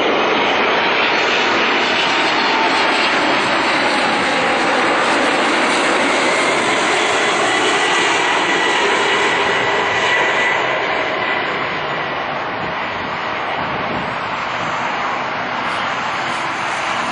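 United Airlines Boeing 747-400's four turbofan engines on final approach, passing low overhead: a loud, steady jet rumble with a high whine that slides slightly lower as the jet goes by. The sound eases off after about ten seconds as the airliner moves away toward the runway.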